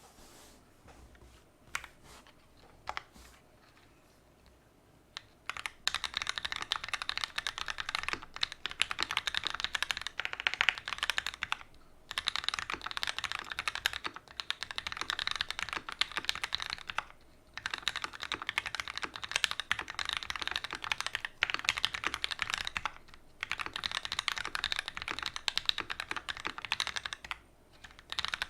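Typing on an OTD 360 Corsa custom mechanical keyboard with Gateron Ink Black linear switches, an aluminium plate and GMK TA90 keycaps. A few lone keystrokes at first, then fast continuous typing from about five seconds in, broken by several short pauses.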